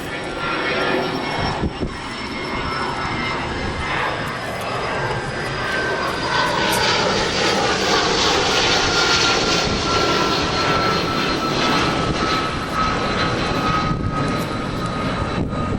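Jet airliner engines passing near the airport. A loud roar swells to its peak in the middle and eases near the end, over a high whine that falls slowly in pitch.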